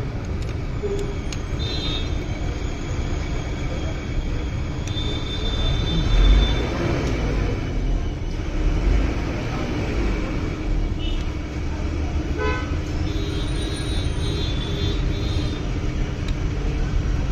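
Steady road-traffic rumble with vehicle horns tooting several times.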